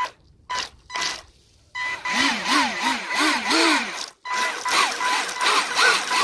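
A homemade RC boat's four brushed 180 electric motors are throttled in three short blips, then run hard with the propeller churning and spraying water while the boat is held in place. The pitch rises and falls several times as the throttle is worked, there is a steady high whine, and the motors cut out briefly about four seconds in.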